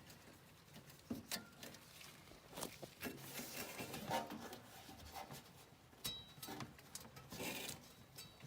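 Irregular scraping, rubbing and knocking as the furnace's blower wheel is pushed by hand, without any motor running: the blower motor is seized and will not turn.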